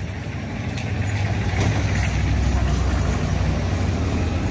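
A motor vehicle's engine rumbling close by on the street, a deep, steady sound that swells about a second in and stays loud.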